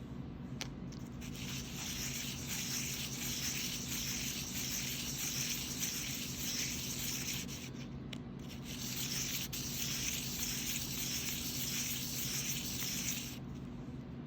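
A metal bezel rubbed on sandpaper in figure-8 strokes, a scratchy rasp pulsing with each stroke, with a short pause about eight seconds in. It is being flattened so it sits light-tight on the backplate for soldering.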